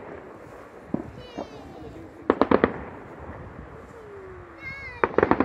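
Aerial fireworks shells bursting, heard at a distance as quick clusters of sharp bangs: a couple of single cracks about a second in, a rapid run of about five around halfway, and another run near the end.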